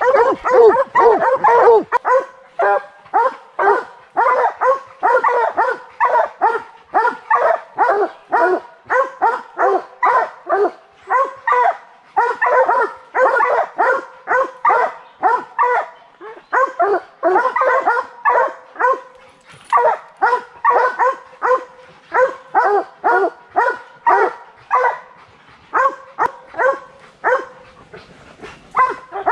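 A pack of bear hounds barking steadily up a tree, baying a treed black bear. For the first couple of seconds the barks overlap in a dense chorus. After that they come separately, about two a second.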